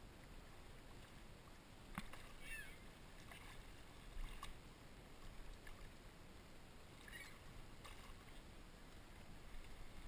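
Faint water with a few small splashes and clicks as a hooked carp stirs in shallow water at the shoreline. A couple of short high chirps come through as well.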